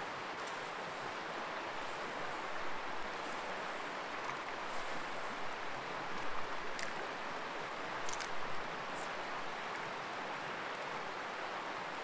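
Steady rushing of a creek's fast spring-flood water, with a few faint sharp clicks about halfway through.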